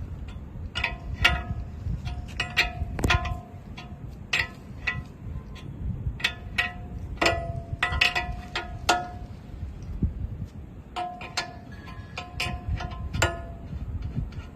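Metal tools clinking and striking steel while the bolt holding the excavator bucket's pin is loosened: irregular sharp clinks, several ringing with a bell-like tone, over a steady low rumble.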